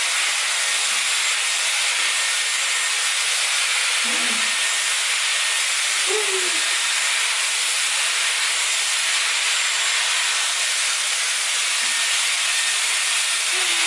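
Dyson Airwrap running: the steady, even hiss of its fan blowing air.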